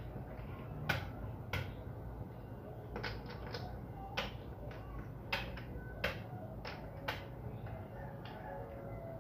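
Dama pieces being set down and slid on a plastic table board as moves are played out: a dozen or so separate light clicks at irregular intervals.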